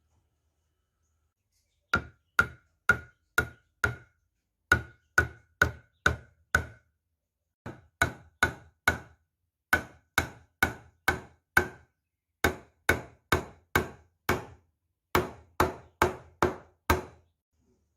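Sharp knocks of a striking tool on wood, in runs of four to six at about two or three a second with short pauses between the runs; each knock has a brief ringing note.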